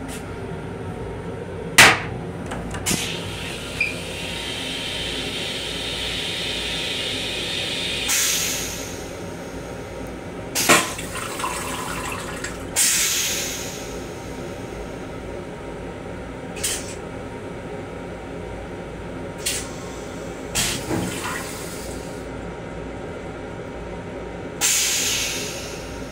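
Stainless-steel toilet on a Long Island Rail Road M7 railcar flushing: water hisses for several seconds, then comes in about seven short spray bursts spread over the next twenty seconds. Under it runs the steady low rumble of the moving train.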